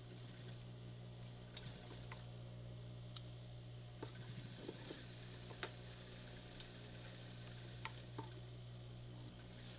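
Faint steady low hum with scattered light clicks and ticks from hands working cloth at a sewing machine. A short cluster of quick clicks comes about four seconds in.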